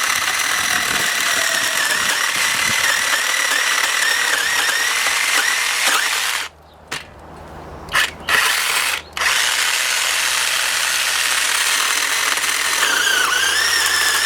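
Battery chainsaw running with its chain whirring, then cutting out about six and a half seconds in, with a few short spurts as it is restarted, before running steadily again. The owner puts the cutting out down to the saw having got warm from overuse.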